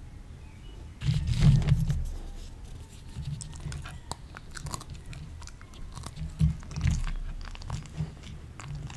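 A Samoyed biting and chewing raw sugar pea pods close to a microphone: a louder crunching burst about a second in, then scattered small crunches and clicks.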